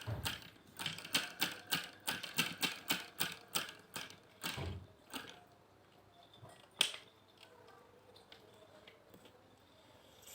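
Homemade flame licker (vacuum) engine running, its mechanism clacking in a quick, even rhythm of about three to four clicks a second. The clicking fades out about five seconds in, and there is one sharp click near seven seconds.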